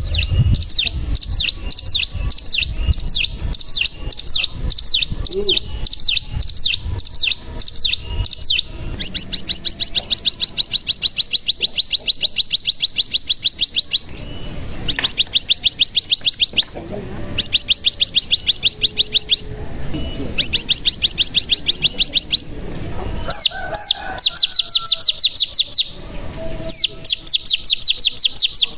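Ciblek gunung (cigun, a prinia) singing: a run of sharp, high, evenly spaced chirps for about eight seconds, then a series of long, rapid, buzzing trills (its 'bren') broken by short pauses.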